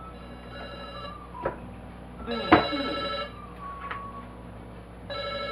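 A telephone ringing three times, each ring a steady electronic tone about a second long. There is a sharp click about two and a half seconds in.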